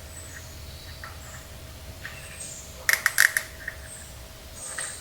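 Small parts being worked together by hand: scattered short high squeaks, and about three seconds in a quick run of sharp clicks.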